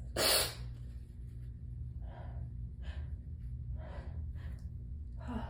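A person's breathing: one sudden loud burst of breath right at the start, then a run of heavy, gasping breaths about a second apart.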